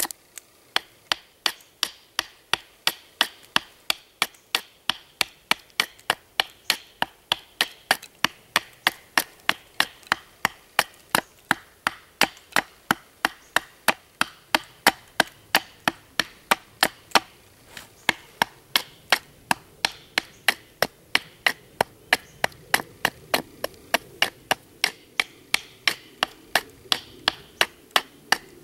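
Fixed-blade knife chopping into the side of a wooden stick held upright on a stump: short, sharp strikes at a steady pace of about three a second, with a brief pause about two-thirds of the way through, chipping a gap into one jaw of a pair of wooden pliers.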